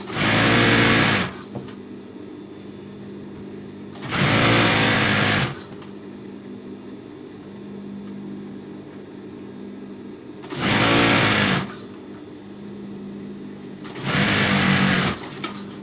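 Industrial sewing machine stitching in four short runs of about a second each, with a steady low hum between the runs.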